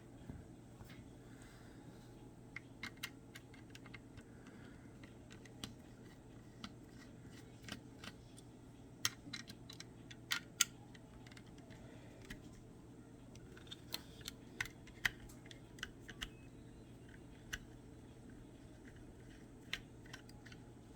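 Faint, scattered small clicks and taps from hands and small tools working on a Blink Outdoor camera's plastic housing while it is being taken apart.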